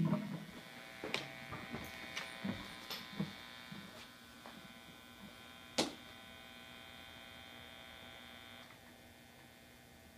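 Rickenbacker M16 Supersonic guitar amplifier humming and buzzing faintly with an electric guitar plugged in and idle. Handling clicks and knocks come over it, the sharpest one about six seconds in. The higher part of the buzz drops away about three-quarters of the way through.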